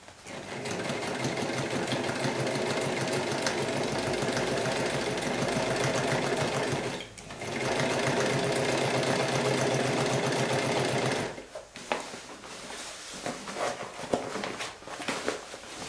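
Keller-51 electric sewing machine stitching a seam in coated fabric with a fast, even run of needle strokes. It runs about seven seconds, pauses briefly, runs about four seconds more and stops, leaving a few light clicks and rustles near the end.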